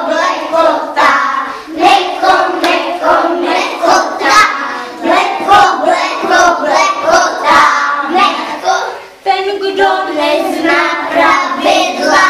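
A group of young children singing a song together in unison, with hand claps running through it.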